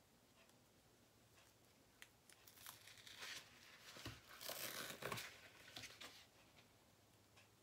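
A rolled craft canvas with its plastic cover being handled and unrolled: crinkling and rustling that starts about two and a half seconds in and is loudest near five seconds, with a couple of soft thumps.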